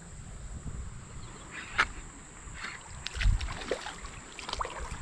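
A hooked smallmouth bass splashing as it breaks the surface and leaps from the water beside a kayak, the loudest splash a little past three seconds in. A few sharp clicks come before and after it, over a low rumble.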